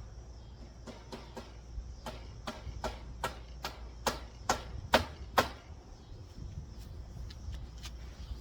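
Hammer blows: a quick run of about nine evenly spaced strikes, two or three a second, getting louder toward the end, with a few lighter taps around them.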